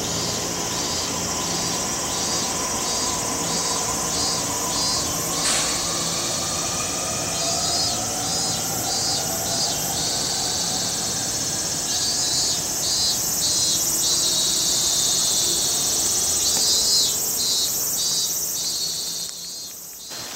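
Cicadas droning loudly, their song coming in repeated pulsing phrases every few seconds. Underneath, a Tokaido Line commuter electric train pulls out of the station, its motor whine gliding up in pitch and fading as it moves off.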